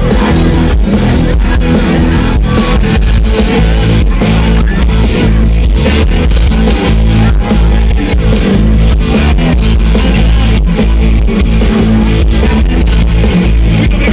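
Pop-rock band playing live and loud through a PA, with guitar prominent over a steady drum beat.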